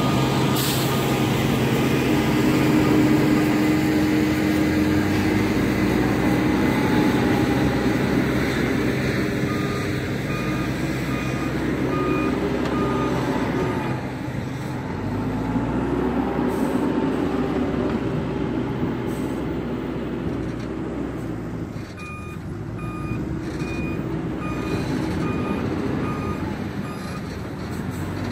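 Cat 432F backhoe loader's diesel engine running under load while it pushes soil, its pitch rising and falling several times as it works. Twice its reversing alarm beeps steadily, about two beeps a second, as it backs up.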